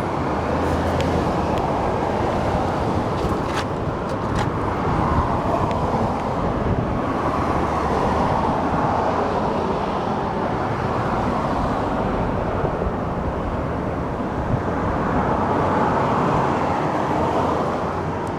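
Steady traffic noise from passing road vehicles, swelling and easing as they go by, with a few faint clicks in the first few seconds.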